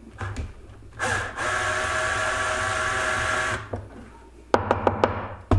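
Bosch cordless drill/driver spinning up with a brief rising whine and then running steadily for about two and a half seconds on a drywall screw in a plastic ear butt, backing the screw out. A few sharp knocks follow near the end.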